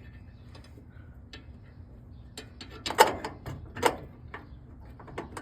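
Scattered clicks and knocks of a hinge bolt being fitted into a car door hinge. The two loudest come about three seconds and four seconds in.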